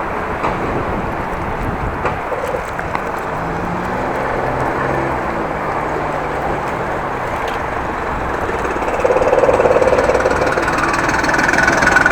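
Steady wind rush from riding a bicycle, with a car engine running in traffic close by. The traffic sound grows louder about nine seconds in.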